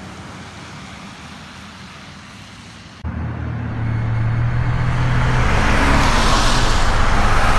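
Faint steady traffic hum, then from a sudden cut about three seconds in, a car's engine and tyre noise growing steadily louder as it approaches and passes close on damp asphalt.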